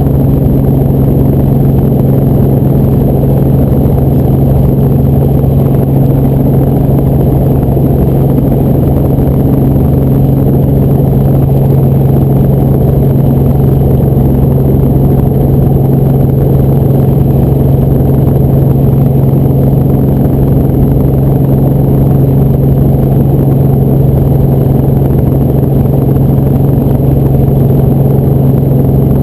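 Helicopter engine and rotors running in flight: a loud, steady drone with a strong low hum that holds one pitch throughout.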